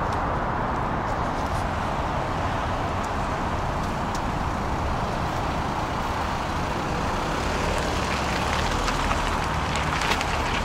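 Steady, unbroken road traffic noise across a car park, with no distinct events standing out.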